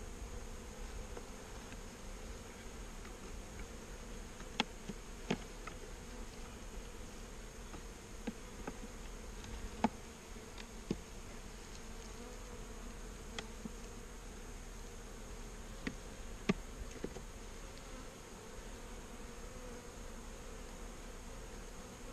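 Honey bee colony buzzing steadily in an open hive, a roar that the beekeeper takes for a sign the colony is queenless. Occasional sharp clicks and knocks as the wooden frames are handled.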